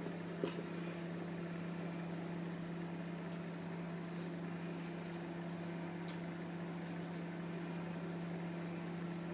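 A steady low mechanical hum, with a couple of faint ticks.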